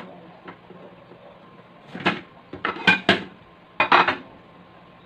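Dishes clattering on a table: a few short knocks of plates being moved, bunched between about two and four seconds in.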